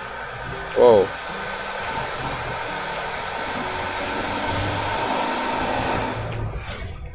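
A short vehicle horn toot with a bending pitch about a second in, then a steady airy whooshing rush that cuts off fairly suddenly near the end.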